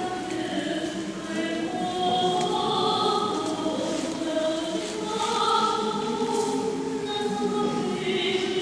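Church choir singing unaccompanied Orthodox liturgical chant, held notes moving from phrase to phrase.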